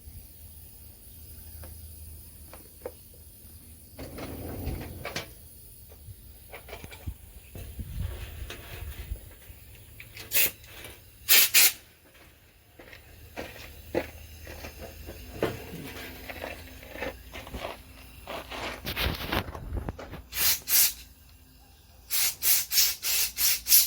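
Short hissing spray bursts blown into carburetor parts: a couple near the middle, then a quick run of five or six near the end, with small clicks and handling of metal parts between them.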